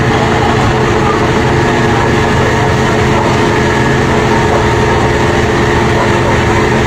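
A large engine running loudly and steadily at constant speed, a continuous drone with a steady hum, without change.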